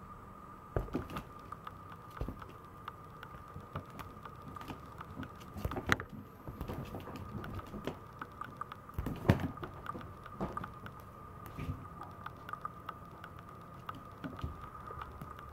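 Maltese puppy's claws and paws tapping and pattering irregularly on a vinyl floor as it moves about, with a few louder taps.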